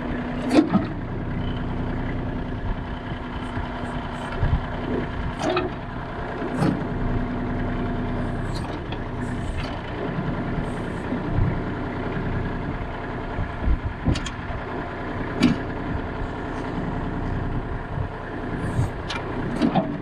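Kubota L35 tractor's diesel engine running steadily while the backhoe hydraulics are worked, with scattered metallic clunks and knocks as the backhoe shifts out of its latches.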